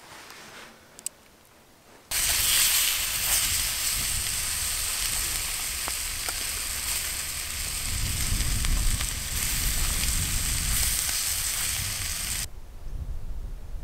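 Sausages sizzling in a frying pan over a campfire: a loud, steady sizzle that starts suddenly about two seconds in and cuts off abruptly near the end.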